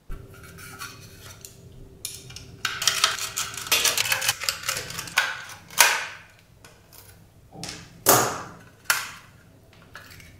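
Clicking and clattering of a PCIe sound card being taken apart by hand: a small screwdriver, screws, the metal bracket and the plastic shroud. A run of quick small clicks comes about a third of the way in, then three louder clacks of the parts in the second half.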